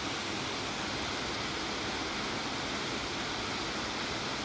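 Waterfall rushing, a steady unbroken hiss of falling water.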